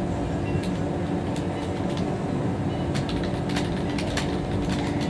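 Fingers typing on a computer keyboard: short, irregular key clicks over a steady low hum.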